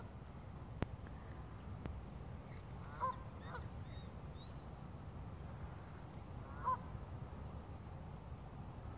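Geese honking a few times in the distance: two calls about three seconds in and another near seven seconds, with faint high chirps of small birds in between over a low steady rumble.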